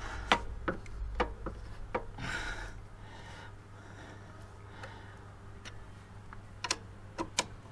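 Sharp little metallic clicks and taps from hands handling the fittings of a stainless steel motorcycle exhaust end can: about five in the first two seconds, then two more near the end.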